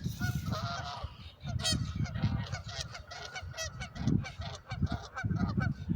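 A group of geese honking repeatedly, the short calls overlapping, over a low rumbling noise. The honking is the geese warning off a person who has come close to them.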